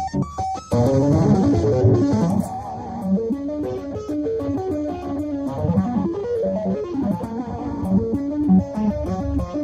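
Electric guitar played shred style with two-handed tapping: fast, continuous runs of notes, with a few short clipped notes in the first second.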